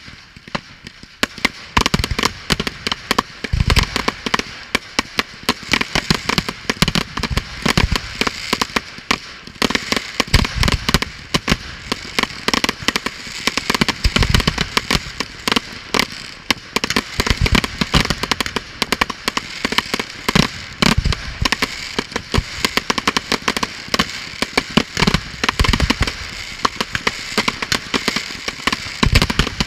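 Fireworks display: rockets and aerial shells going off in a dense, rapid run of cracks and bangs, with a deeper boom every few seconds over a steady hiss.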